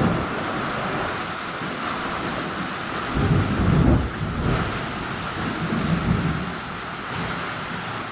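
Heavy rain pouring steadily, with thunder rumbling low underneath, loudest about three to four seconds in and again more faintly about six seconds in.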